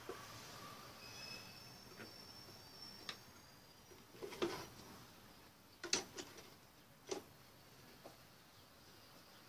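A few light knocks and taps of wood and a small hand tool being handled and set against the box, the loudest about four and a half and six seconds in. A faint high thin chirp sounds about a second in.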